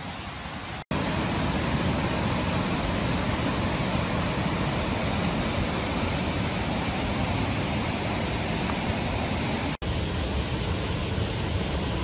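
Steady rushing water of a forest stream, an even hiss with a deep rumble beneath it. It drops out for an instant about a second in and again near the end, and is louder after the first break.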